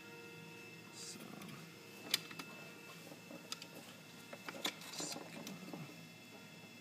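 Hands working with small metal parts and tools: light rustling and a few sharp clicks, the sharpest about two seconds in and again near five seconds, over a faint steady hum.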